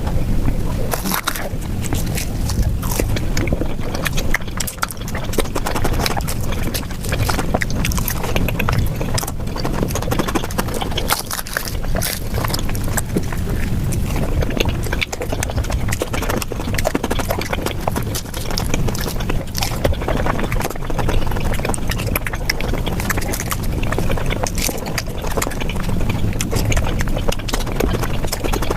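Mukbang eating sounds played at high speed: close-miked chewing, smacking and slurping of flatbread and curry, heard as a dense, rapid run of wet clicks and smacks over a low rumble.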